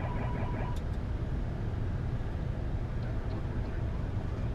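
Steady low rumble of airflow and engines on the flight deck of a Boeing 747-8 on final approach, with gear down and flaps 25. A brief tone and chirping sound comes in the first second.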